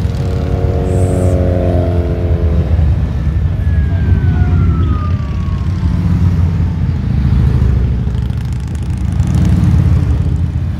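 Large touring and cruiser motorcycles riding past in a line, one after another. Their engines make a steady deep rumble that swells as each bike goes by.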